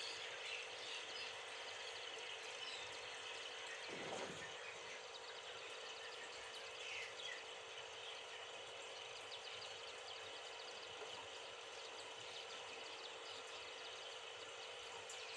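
Steady faint hiss with a low, even hum, and one brief dull bump about four seconds in.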